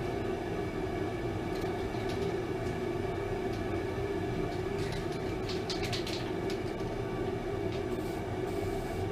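Steady mechanical drone of a running machine with a constant hum, joined by a few short hisses about five to six seconds in.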